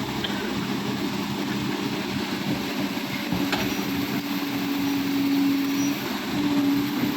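Hydraulic excavator's diesel engine running steadily, its note strengthening twice in the second half as it works under load.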